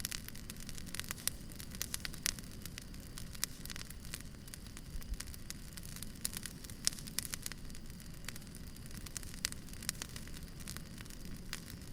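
Firewood burning: a steady low rumble and hiss with frequent irregular sharp crackles and pops.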